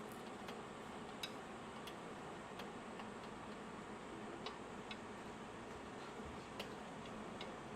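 Freshwater eel grilling: a steady sizzle with scattered sharp pops and crackles, roughly one every second or two.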